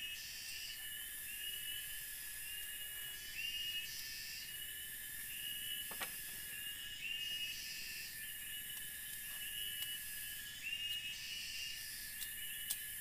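Forest insects calling: a steady high drone with a pulsing high-pitched buzz that switches on and off every second or two, and a short rising chirp repeated about once a second. A couple of sharp clicks stand out, one midway and one near the end.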